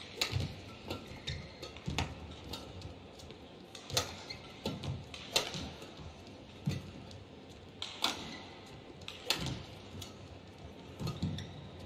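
Badminton rally: racket strings striking a shuttlecock back and forth, a sharp crack about every one and a half to two seconds, with fainter taps of footwork on the court between hits.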